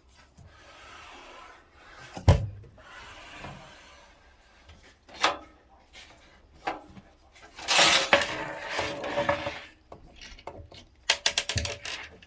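Handling noises from working on a PC case and its parts: a sharp knock about two seconds in, rubbing and scraping, a longer scrape around eight seconds, and a quick run of clicks near the end.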